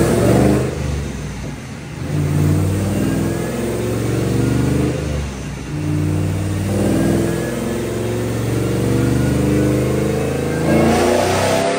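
Supercharged LS V8 engine of a Chevrolet C10 pickup running and revving, with a faint rising whine.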